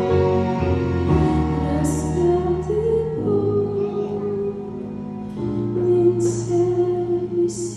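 A woman singing a slow, tender Christian song in Russian over sustained instrumental accompaniment.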